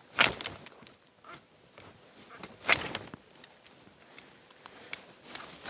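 Branches of an old apple tree being cut during pruning: three loud sharp cracks about two and a half seconds apart, with lighter clicks and rustles between.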